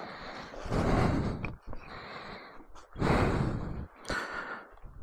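A person breathing heavily close to the microphone: two long, loud breaths about two seconds apart.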